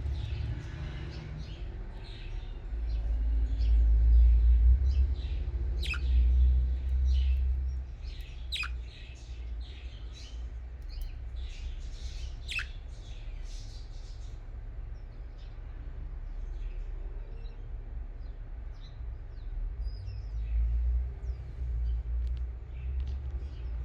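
Budgerigars chirping and chattering in quick short notes, with three sharp falling calls in the first half; the chirping thins out after about fourteen seconds. A low rumble runs underneath, loudest in the first half.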